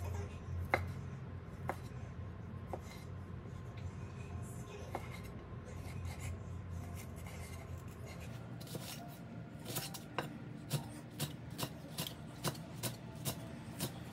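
Chef's knife cutting on a wooden chopping board. At first there are single knocks, about one a second, as sausage is sliced into chunks. Past the halfway point come quick, even chops, about three a second, as onion is chopped finely.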